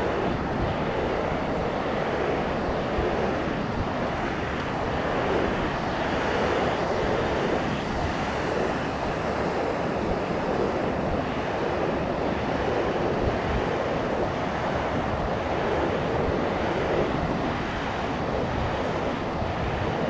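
Pacific Ocean surf washing steadily onto the beach, a continuous rushing wash, with wind gusting on the microphone in a low rumble.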